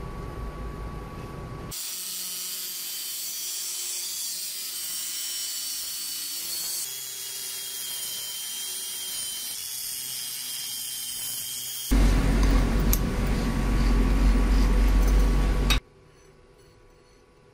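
Angle grinder with a cut-off disc cutting through a steel bar held in a vise: a high hissing whine. About twelve seconds in, a much louder, deeper burst of power-tool noise runs for about four seconds, then cuts off abruptly.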